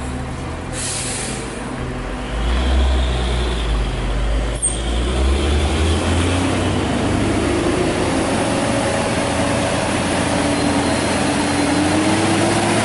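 Isuzu 285 truck's diesel engine working hard under a heavy trailer load on a steep climb, with a short hiss of air from the brakes about a second in. A deep rumble builds a couple of seconds later, and then the engine note rises slowly as it keeps pulling.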